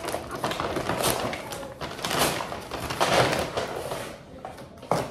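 Marbles and plastic game pieces clattering and rattling as they are handled: a dense jumble of small knocks with a few louder ones.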